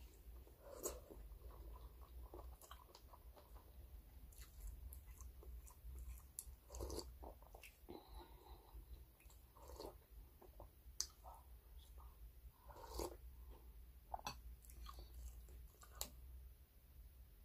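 Faint eating sounds: chewing and mouth noises of someone eating rice and sinigang soup by hand. A few sharp clinks of a metal spoon against a glass bowl are spread through it.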